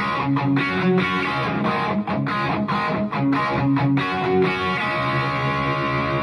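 Gibson Les Paul R9 electric guitar through a 3rd Power Kitchen Sink amp, chords picked in a quick rhythm, then one chord left ringing from about four and a half seconds in.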